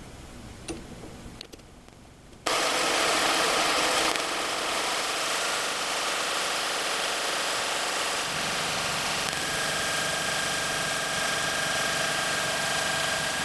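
Mini metal lathe switched on about two and a half seconds in and running steadily, its chuck spinning a length of brass round stock with no cutting; a thin whine joins about nine seconds in. Before it starts, a few light clicks as the bar is fitted in the chuck.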